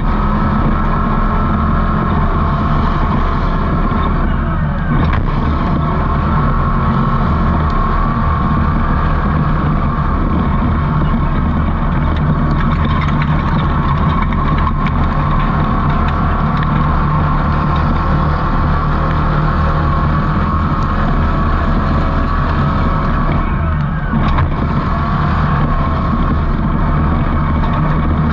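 Super Stock off-road race truck engine running hard at a steady pitch, with no big revs up or down.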